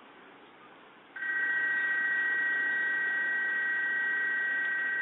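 A loud, steady railway warning tone of two high notes sounding together. It starts about a second in and holds unbroken for about four seconds.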